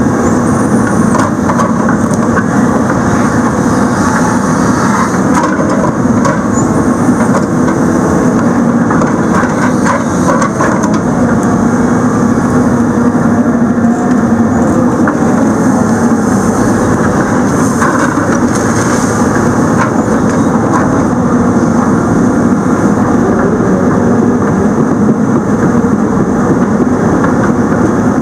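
Diesel engine of the heavy machine carrying a Rotobec grapple saw, running steadily as the boom and grapple move logs and a root stump.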